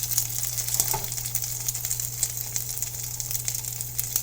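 Butter sizzling and crackling in a frying pan as flour-tortilla quesadillas fry, with a steady low hum underneath.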